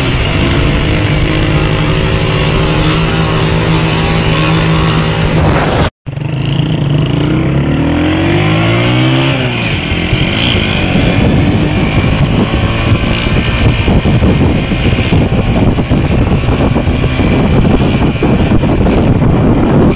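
Small motorcycle engine held at steady high revs during a wheelie, cutting off abruptly about six seconds in. It is followed by an engine note that swings up and down, then a rougher rushing engine and wind noise.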